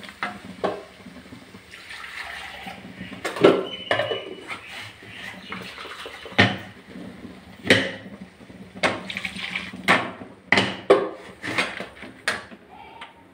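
Wooden spatula stirring a wet crushed-tomato mixture in a non-stick kadai, scraping and knocking against the pan about ten times at irregular intervals.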